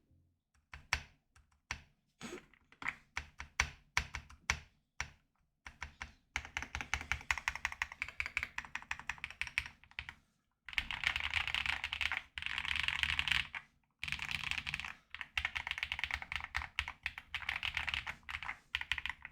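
Typing on an AKKO MU01 mechanical keyboard with a wooden case: a few separate keystrokes at first, then fast, continuous typing from about six seconds in, with two short pauses. This is the keyboard's stock sound, with its white foam dampening still inside, which the reviewer judges bad.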